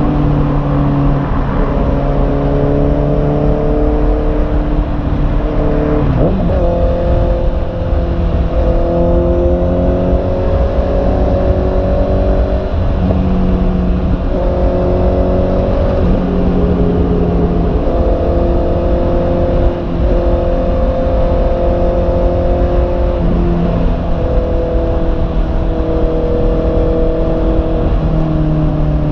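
Honda CB650R's inline-four engine running steadily at cruising speed, its pitch holding for a few seconds at a time and then stepping or sliding to a new pitch every few seconds, over a low rumble.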